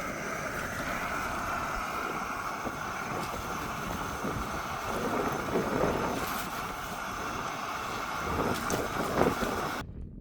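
Strong blizzard wind blowing against the microphone: a steady rushing roar with stronger gusts around the middle and near the end, starting and stopping abruptly.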